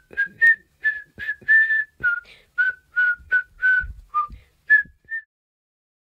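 A whistled tune of short, separate notes at about three a second, the pitch stepping up and down, with a low thump near four seconds in. The tune stops a little after five seconds in.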